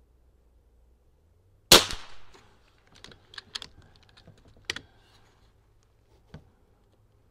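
A single shot from a Niksan Tacto-S .22 PCP air rifle a little under two seconds in, followed over the next few seconds by a string of sharp clicks and one more click near the end.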